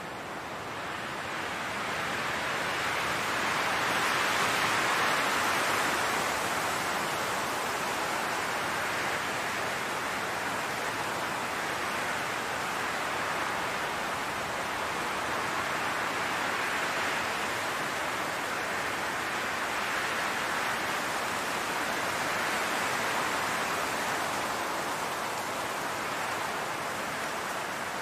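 Wind blowing through tall grass: a steady rushing noise that swells into a stronger gust about four seconds in and eases off again.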